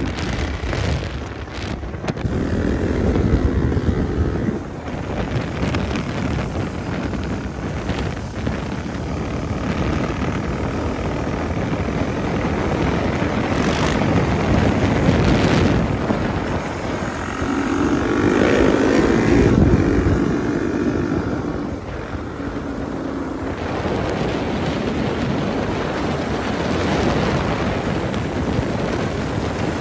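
Several dirt bike and supermoto engines running and revving at road speed. The strongest revving comes about two thirds of the way through.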